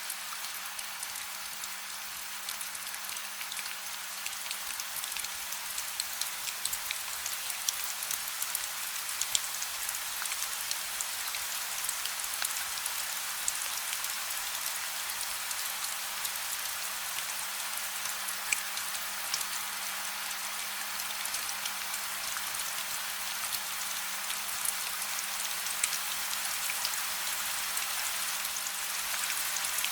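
Steady rain falling: a dense, even hiss of drops with many sharper individual drop ticks scattered through it.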